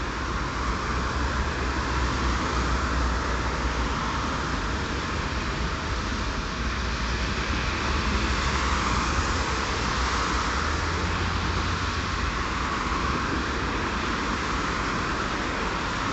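Steady road traffic noise from a busy multi-lane road: tyres hissing on wet pavement over a low rumble.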